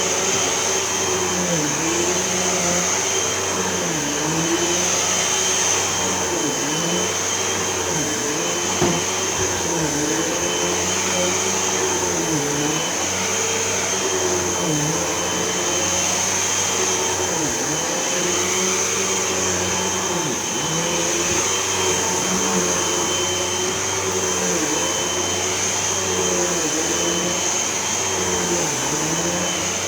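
Hoover Elite Whole House vacuum cleaner running steadily on carpet, its motor whining high. Its pitch dips briefly every second or two.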